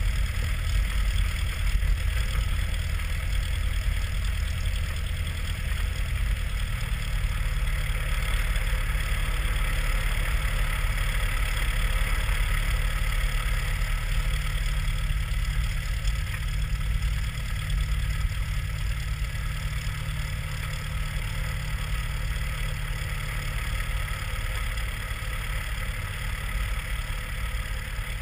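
Cessna 172S's four-cylinder Lycoming engine and propeller running at low power on the ground, a steady low drone whose note shifts slightly about seven seconds in.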